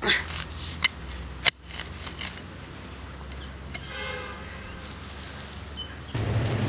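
A small hand digging tool strikes into garden soil three times in the first second and a half, with faint bird chirps behind. Near the end a louder low steady hum cuts in.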